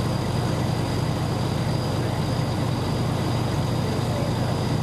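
Steady low rumble of idling vehicle engines, with a faint, steady high-pitched tone above it.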